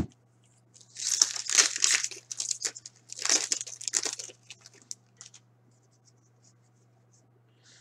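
A 2018-19 Upper Deck Series 1 hockey card pack's wrapper torn open and crinkled by hand, in two main bursts of tearing and crinkling about a second in and about three seconds in, trailing off into a few small ticks. A short tap comes at the very start.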